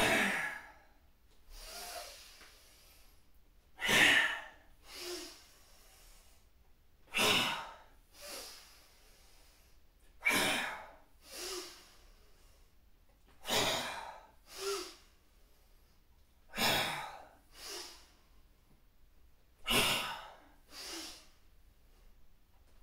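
A man's sharp, forceful exhalations, one with each squat, about every three seconds, seven in all. Each is followed about a second later by a softer breath.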